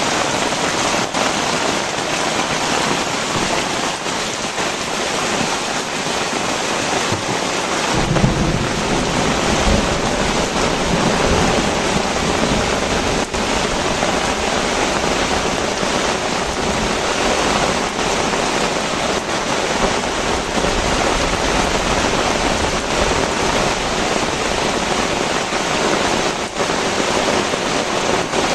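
Heavy tropical rain pouring steadily. About eight seconds in, a deep rumble of thunder sets in and keeps rolling under the rain.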